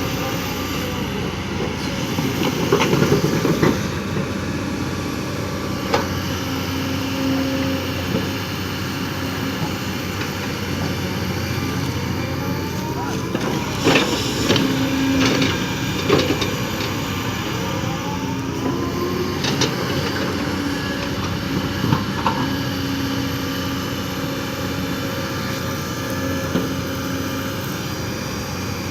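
Kobelco SK220 hydraulic excavator working: its diesel engine runs steadily with a pitched hydraulic whine that comes and goes, and several sharp knocks, the loudest about three and fourteen seconds in.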